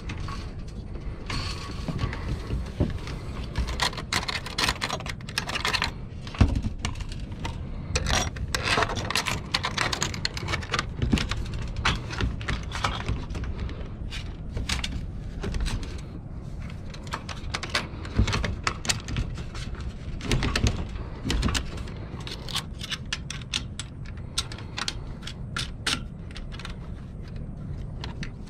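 Sailboat rigging hardware being handled: many small irregular metal clicks, clinks and rattles as the mast, its hinged step and the fittings are worked by hand, with one louder knock about six seconds in.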